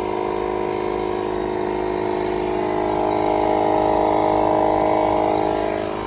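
Old 12-volt air pump running steadily, a loud, even hum, as it inflates a tractor tire whose bead has just re-seated on the rim.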